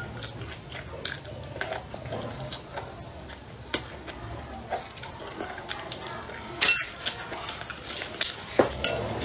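Close-up eating sounds: chewing and gnawing at a braised pork rib, with scattered sharp clicks of chopsticks and bone against a plate.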